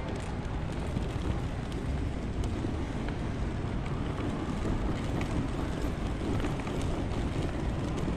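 Steady low rumble of a large airport terminal concourse, with a few faint ticks.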